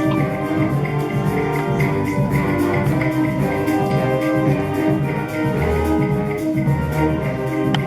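Middle-school band playing live: a bright flute melody over drums and shaker percussion in a samba rhythm.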